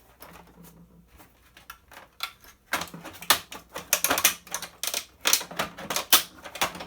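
Plastic parts of a vacuum cleaner's housing clicking and rattling as they are handled and pulled apart. A few light clicks at first, then a rapid, louder clatter of clicks from about three seconds in.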